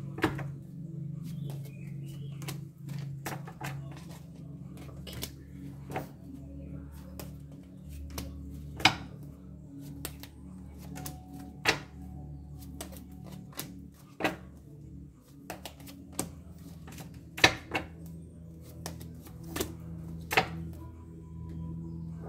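Tarot cards being laid and tapped down on a glass tabletop: sharp, irregular clicks and taps, a dozen or so loud ones spread out unevenly, over a steady low drone.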